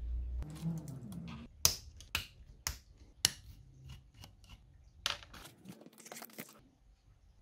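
Sharp metallic clicks and taps of a screwdriver and fingers working on the aluminium steering linkage of an RC car chassis, irregular and about a dozen in all, after a low rumble in the first second or so.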